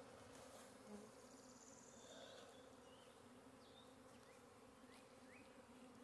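Faint, steady hum of many honey bees flying around their hive, a colony getting ready to swarm.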